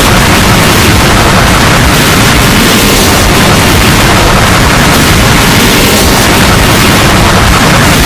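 Constant, heavily clipped wall of distorted noise: many copies of the Alberta emergency alert alarm stacked and pitch-shifted on top of one another until no single alarm tone stands out. It stays at the same deafening level without a break.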